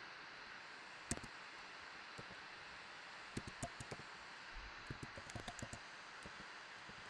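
Typing on a computer keyboard: a single keystroke about a second in, then scattered bursts of key taps from about three and a half to six seconds, over a steady faint hiss.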